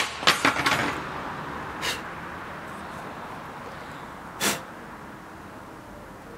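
Sharp knocks and clatter from a charred wooden root being handled: a quick cluster at the start, then single knocks about two and about four and a half seconds in, over steady background noise.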